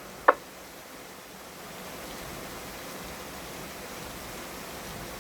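Two-way radio static between transmissions on an amateur radio net: a short click about a third of a second in, then a steady even hiss.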